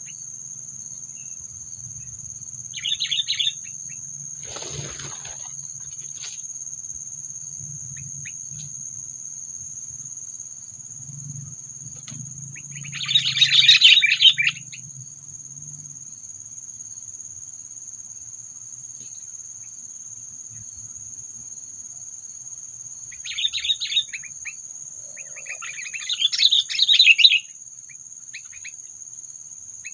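Sooty-headed bulbul giving bursts of fast chattering calls, four times, loudest in the middle and near the end, over the steady high drone of crickets.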